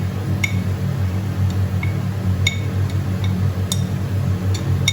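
Spoon clinking sharply against a glass bowl about seven times, tapping spice powder out, over a steady low hum.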